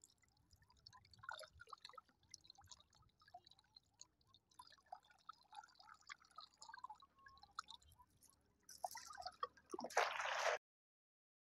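Wet cast net dripping in faint small drops while it is held ready, then about nine seconds in a rush of noise as the net is thrown and splashes down across the river surface, cutting off suddenly.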